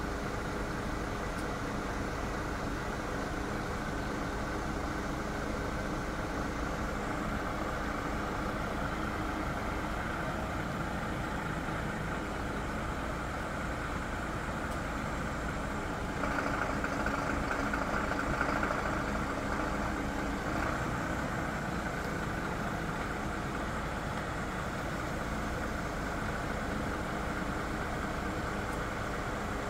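Diesel engine of a Mitsubishi Fuso crane truck running steadily to power its Unic loader crane. The sound steps up louder and brighter for about four seconds past the middle, then settles back.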